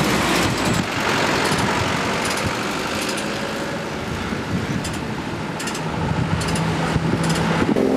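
Steady engine and road-traffic noise from motor vehicles running close by, with an engine hum standing out for a while near the end.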